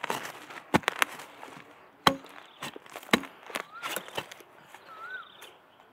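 Wild bamboo shoots being snapped off by hand: a string of sharp woody cracks and snaps, the loudest about two seconds in.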